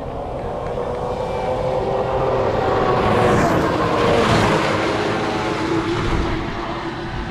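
Race snowmobile engine passing at speed: the engine note swells to a peak midway, then its pitch drops and the sound fades as it moves away.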